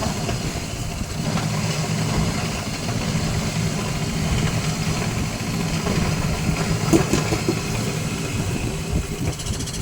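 Kerisik machine running steadily as it grinds fried grated coconut, a constant mechanical hum, with a single short click about seven seconds in.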